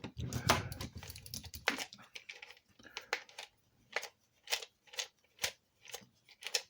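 Small tools clicking and scraping on the plastic case of a cheap body camera during disassembly. For about the first two seconds there is busy handling and scraping. After that the clicks come one at a time, about two a second.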